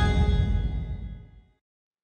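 The last chord of the intro music rings out and fades away, dying out about a second and a half in.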